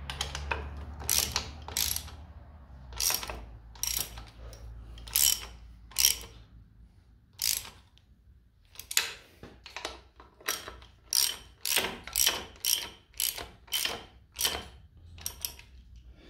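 Hand ratchet wrench clicking in a long run of short strokes, spaced out at first and quickening to about two strokes a second in the second half, running a bolt in on the jeep's brake assembly.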